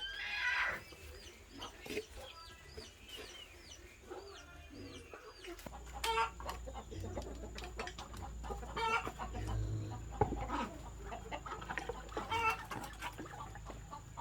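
Chickens clucking and calling, with many short high-pitched calls in the first few seconds. A low rumble comes in about six seconds in.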